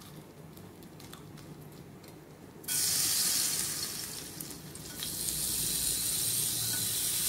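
Sugar-coated lemon slices sizzling as they go into a hot, lightly oiled frying pan to caramelize. The sizzle starts suddenly about two and a half seconds in and grows louder about five seconds in, as a second slice goes in.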